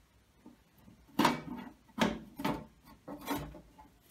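The metal outer cover of a Pioneer TX-8500 II tuner being slid back off its chassis, scraping in about four short strokes.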